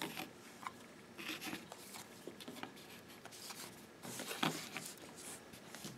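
Faint rustling and light ticks of trading cards being handled and set down one by one on a tabletop.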